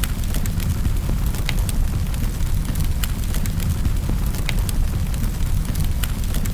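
Wood fire in a fireplace crackling: irregular sharp pops and snaps, a few each second, over a steady low rumble.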